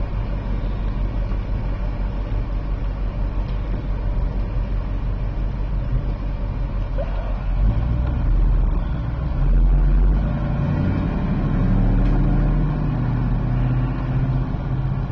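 Car engine running with a steady low hum that swells about eight seconds in before settling back to an even drone.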